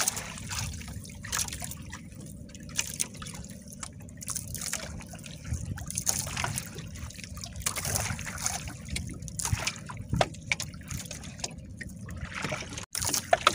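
Seawater lapping and trickling against the hull of a small outrigger boat, with irregular splashes over a steady low rumble.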